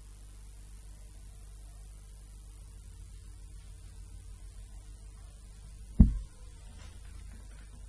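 Steady electrical mains hum with faint hiss, broken about six seconds in by one sudden loud, low thump that dies away within half a second.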